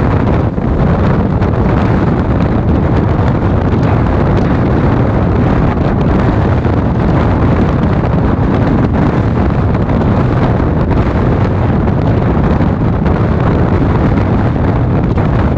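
Steady rumble of a moving express train's passenger coach running on the track, heard with strong wind buffeting the microphone held out of the coach.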